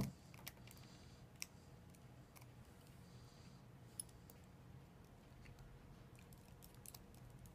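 Faint, sparse small clicks and light scraping of a precision screwdriver working out the tiny screws that hold the metal plate on an iPhone 6 screen assembly, with a sharper click at the start and another about four seconds in.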